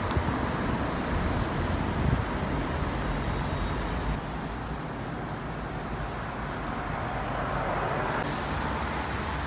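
Road traffic on a busy street: a steady hum of passing cars, a little louder in the first couple of seconds.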